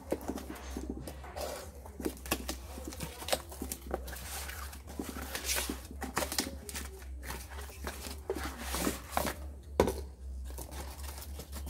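Brown paper and corrugated cardboard parcel packaging torn open and crumpled by hand: irregular rips and crinkles, with a sharper knock about ten seconds in.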